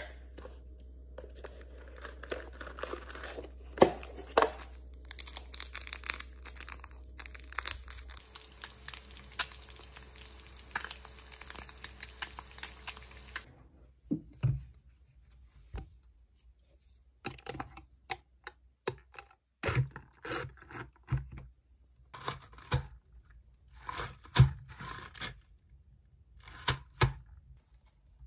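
Rustling and crinkling with scattered clicks, then, after an abrupt cut about halfway through, a series of separate knocks and taps with quiet gaps between them.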